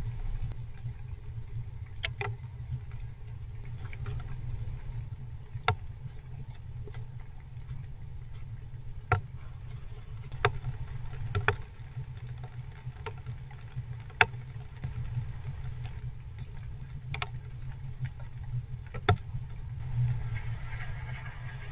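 Single sharp taps on the wooden nest box, one every second or two at uneven spacing, over a steady low hum: raindrops dripping onto the box during a rainstorm. A brief scratchy rustle comes near the end.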